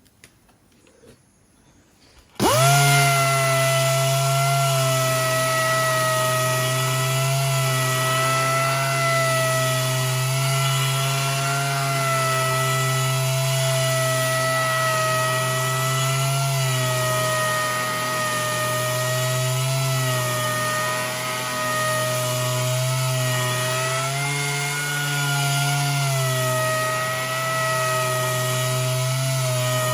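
Electric sander fitted with Abranet mesh abrasive starting up about two seconds in and running steadily as it sands curb damage out of the edge of an alloy wheel. Its whine dips slightly in pitch now and then.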